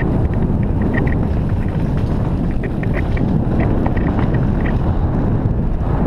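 Mountain bike descending a dirt trail at speed: steady wind buffeting on the camera microphone over the rumble of tyres on dirt, with scattered light clicks and rattles from the bike.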